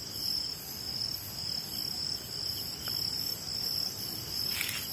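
A steady, high chorus of crickets and other night insects chirping, with a faint brief rustle near the end.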